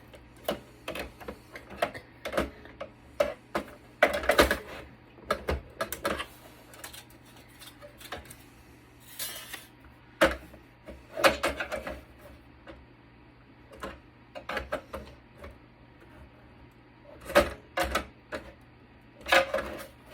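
Irregular clicking, tapping and clattering of tools and parts on a network switch being taken apart by hand, with a few louder clatters every several seconds.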